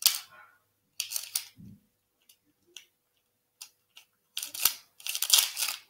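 Plastic Beyblade ripcord launcher clicking as the toothed ripcord is fed into it: scattered single clicks at first, then a quick run of ratcheting clicks near the end.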